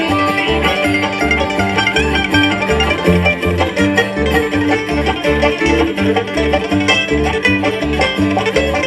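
Live bluegrass band playing an instrumental passage: fast banjo picking over guitar, with bass notes on a steady beat.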